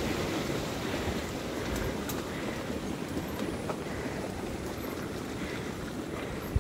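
Steady rushing noise of a mountain bike rolling along a rough trail: tyre rumble on the ground, with wind on the microphone and a few faint ticks.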